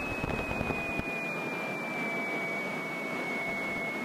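Grumman light aircraft's piston engine idling just after start, heard from inside the cockpit, with a steady high whine that slowly drops in pitch.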